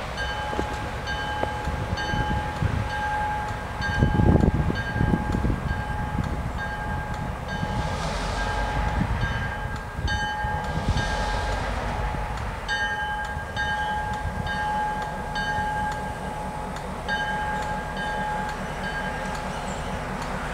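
A bell rings steadily about twice a second while a diesel locomotive approaches, its low engine rumble swelling about four seconds in.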